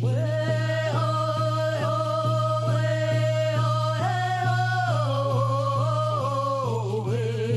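A song: a voice singing long held notes over a steady low drone and a regular beat of about two strokes a second, the melody stepping down in pitch in the second half.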